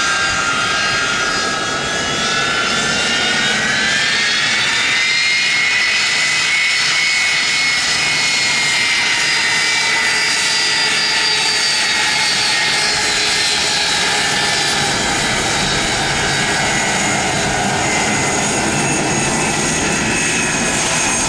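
Boeing C-32A (757-200) twin Pratt & Whitney PW2040 turbofans running loud with a high jet whine. The whine rises in pitch a few seconds in as the engines spool up for takeoff, then holds steady while a deep rumble builds near the end as the aircraft starts its takeoff roll.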